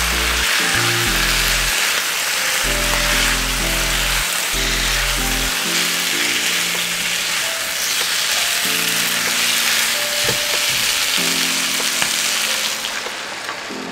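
Chicken pieces sizzling as they sauté in hot oil in a nonstick frying pan, over background music with a low, stepping bass line. The sizzle dies down near the end.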